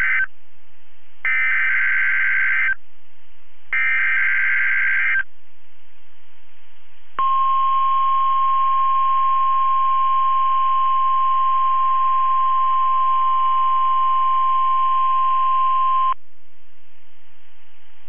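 NOAA Weather Radio emergency alert: the end of one burst of the SAME digital header, then two more buzzy data bursts of about a second and a half each, followed after a short gap by the 1050 Hz warning alarm tone, one steady tone held for about nine seconds that stops abruptly. Together they mark the broadcast of a test tornado warning for a statewide drill.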